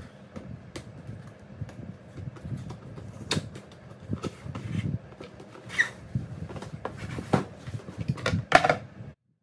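A large cardboard box being handled and opened: scattered knocks, scrapes and rustles of cardboard, the sharpest ones near the end, cutting off suddenly.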